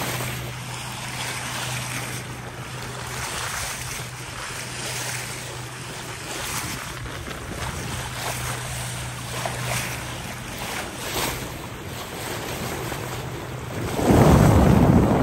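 Water rushing and splashing along a sailboat's bow as it cuts through the sea at about six knots, with wind on the microphone and a low steady hum underneath. Near the end a loud gust of wind buffets the microphone.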